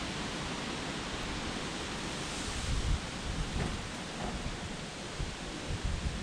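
Strong mountaintop wind buffeting the microphone: a steady rushing hiss with low rumbling gusts that swell about two and a half seconds in and again near the end.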